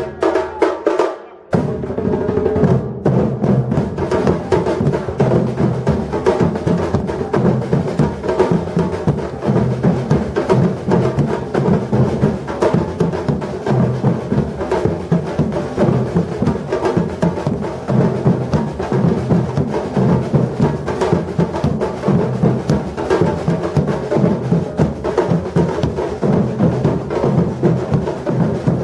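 Batucada drum group playing a driving rhythm on bass drums, snare drums and small high percussion. The group drops out briefly about a second in, then carries on at full strength.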